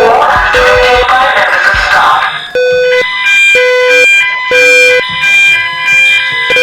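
Electronic fire alarm sounder, loud, alternating between a low tone and a higher tone about once a second. For the first couple of seconds it is mixed with a dense rushing noise that cuts off suddenly, leaving the clean two-tone pattern.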